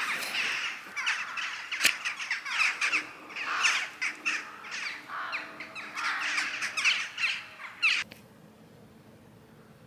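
A large flock of birds calling overhead, many overlapping calls at once, which cut off suddenly about eight seconds in.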